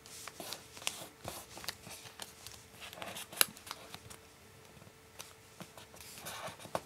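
Sheet of origami paper being folded by hand, its edges brought in to a centre crease: faint rustling and crinkling, with scattered sharp little ticks as fingers press the folds flat.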